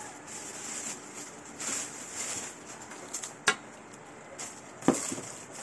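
Rustling handling noise with two sharp clicks or knocks, one about three and a half seconds in and a louder one about five seconds in.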